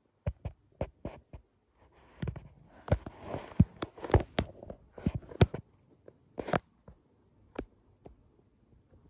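A cat's paws and fur bumping and rubbing against a phone's microphone: irregular taps and knocks, with scratchy rubbing and the loudest knocks in the middle, then a few scattered taps.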